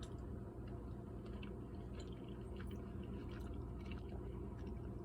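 Soft scattered clicks and small wet sounds of a utensil in thick, cheesy macaroni as the first bite is taken, over a low steady hum.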